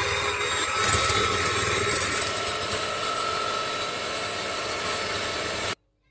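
Electric hand mixer running with its beaters whipping egg whites in a glass bowl: a steady motor whine with a rattling wash of noise, which stops abruptly near the end as the whites reach stiff peaks.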